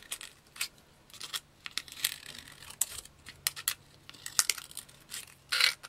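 Small scissors snipping through the thin plastic base of a water bottle: a run of short, sharp, irregular snips and clicks, a few a second, with a louder brief rustle of the plastic near the end.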